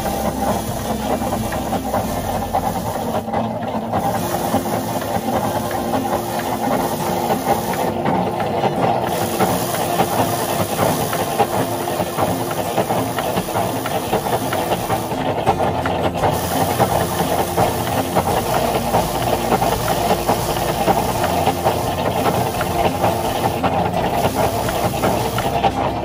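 Foot-pedal rice thresher running: its wire-toothed drum spins and strips the grain from sheaves of rice straw held against it, making a continuous, even noise without pauses.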